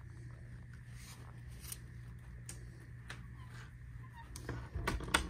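Knocks and bumps as a handheld phone camera is carried through a closet doorway: a few light clicks, then a quick cluster of louder knocks near the end, over a steady low hum.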